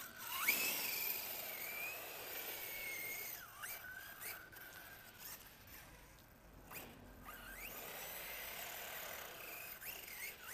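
Motor of an HPI radio-controlled truggy whining as it drives on snow, its high pitch dropping and rising with the throttle several times. A few brief sharp clicks.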